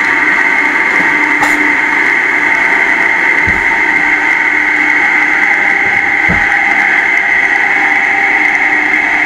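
Food processor motor running steadily at full speed with a high whine, pureeing thawed green peas with lime juice into a pea guacamole. Two faint low thumps sound partway through.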